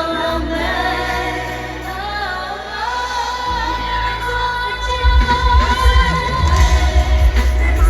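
Live Mandopop concert music: a woman singing a sustained melody over synths, with a heavy bass beat coming in about five seconds in and the music getting louder.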